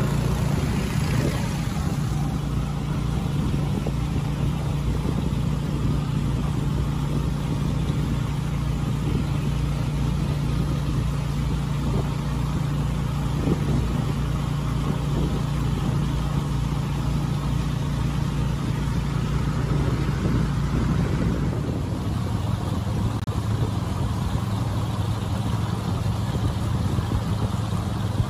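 Small river boat's motor running steadily at speed, with a steady rushing hiss over it. About three-quarters of the way through, its pitch drops as the motor slows.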